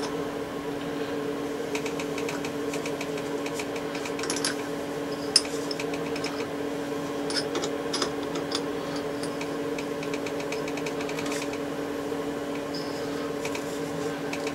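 Small benchtop machine tool's electric motor running with a steady hum, with light rapid ticking in places and a few sharp clicks, the loudest about five seconds in.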